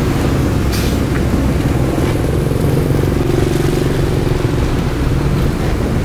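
Heavy diesel engine of construction machinery running steadily under load, with a short knock under a second in.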